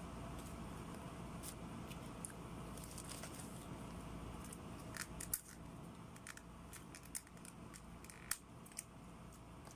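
Faint clicks and crinkles of an aluminium foil tray and plastic bag as fingers pick through fried chicken and fries, with a few sharper ticks in the second half.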